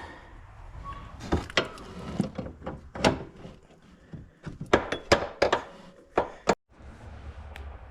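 Metal drive-shaft parts clinking and knocking as they are handled and fitted: a string of sharp clicks and clunks, irregularly spaced, with handling noise between them.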